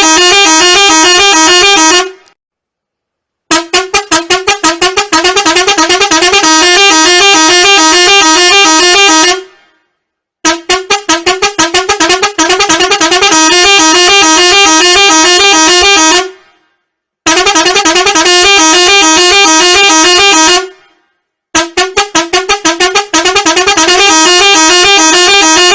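Loud wake-up alarm tone: a harsh, fast-warbling pitched sound in bursts of several seconds. The bursts are separated by silences of about a second, and each one opens with a rapid stutter of pulses.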